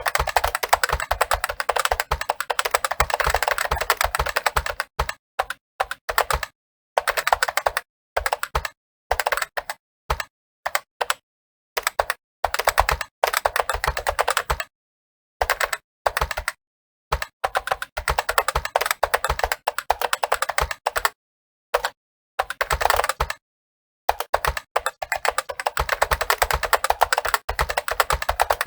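Fast typing on a computer keyboard: rapid key clicks in runs of a few seconds, broken by short pauses.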